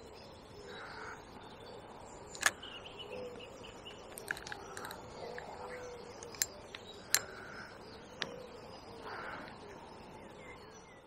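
Birds calling, among them a few harsh, caw-like calls, with several sharp clicks standing out; the loudest click comes about two and a half seconds in.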